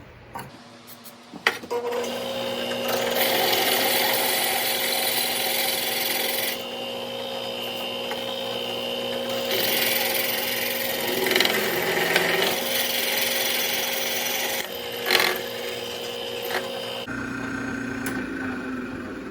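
Shopsmith running as a drill press, starting about a second and a half in. Its motor hums steadily while the bit grinds into the metal of the vise plate, and the cutting noise swells and eases in stretches. The machine shuts off near the end.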